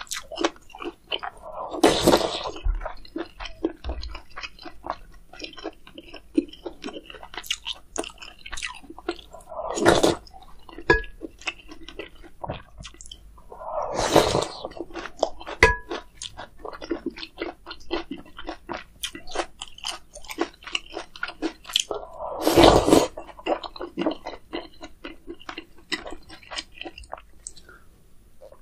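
Close-miked chewing and wet mouth sounds of eating spicy meat rice soup with kimchi, with many small clicks and smacks. Four louder noisy bursts about a second long come at intervals of several seconds.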